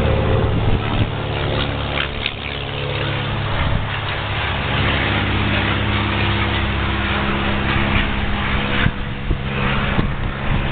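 A combustion engine running steadily, a low hum with its pitch held nearly level.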